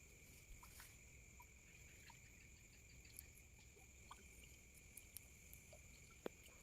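Near silence: a faint steady high-pitched whine at two pitches, with scattered faint ticks and one sharper tick near the end.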